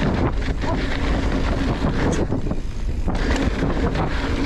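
Wind buffeting the microphone of a camera carried on a fast mountain-bike ride, over the rumble of tyres on a dirt trail. Scattered short knocks and rattles come from the YT Capra Core 2 full-suspension bike over rough ground.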